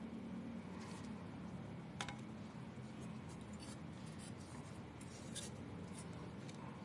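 Intermittent light scratching and rubbing with a few small clicks, the sharpest about two seconds in, from hand work on a graphics card during thermal paste replacement, over a steady low hum.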